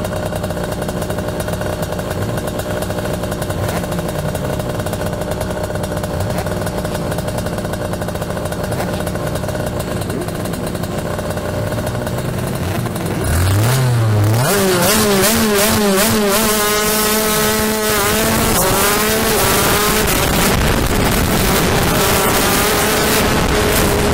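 80cc two-stroke shifter kart engines heard from onboard, first with a steadier, lower engine note, then about thirteen seconds in the sound jumps louder and the engine revs up in a series of rising sweeps, dropping back each time as it shifts up through the gears under hard acceleration.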